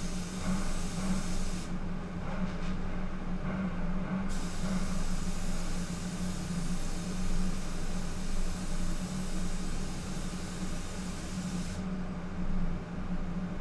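Automotive paint spray gun hissing as base coat is sprayed, in passes that cut off about 2 s in, resume about 4 s in and stop near the end, over the steady hum of the paint booth's air system.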